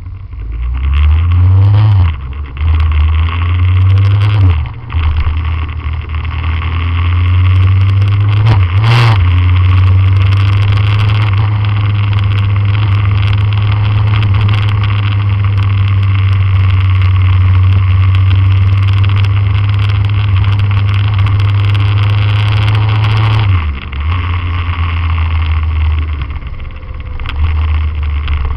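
Motorcycle engine accelerating through the gears. The pitch climbs and drops at shifts about 2 and 5 seconds in, then holds steady at cruising speed with wind and road noise, and eases off about 23 seconds in.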